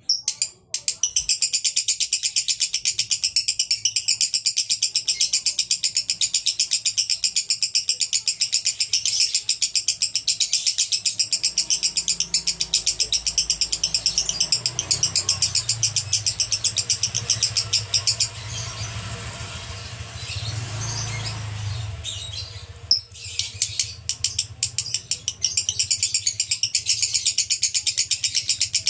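Male lovebird singing in the 'konslet' style: a long, unbroken run of rapid, evenly repeated high chirps. It breaks off for a few seconds about two-thirds through, then starts again.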